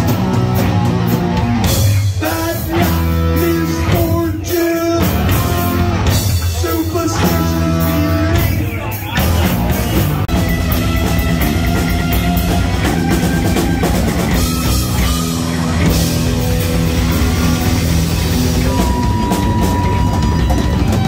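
Heavy metal band playing live, with loud electric guitar, bass and drums. The first half is riffs of held chords broken by short stops, and dense, continuous playing follows.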